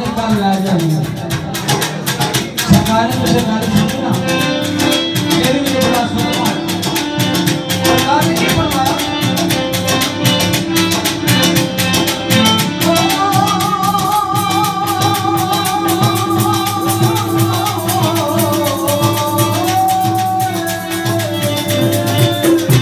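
A man singing into a microphone over amplified instrumental accompaniment with a steady percussion beat. In the second half he holds long, wavering notes.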